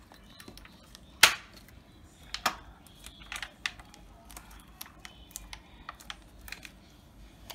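Plastic housing of a BMW X5 junction box clicking and snapping as its top cover is pressed down, the clips seating in their grooves. One loud snap about a second in and another a second later, then lighter clicks and rattles of the plastic being handled.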